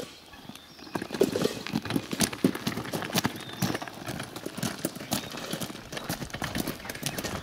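Footsteps and a wheelbarrow's wheel crunching over a crushed-stone gravel road: a quick, irregular run of crunches and clacks that picks up about a second in.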